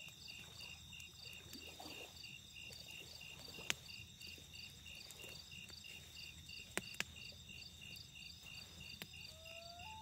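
Crickets chirping in a steady pulsing rhythm, about three chirps a second. A wood campfire gives a few sharp pops, the loudest about four and seven seconds in.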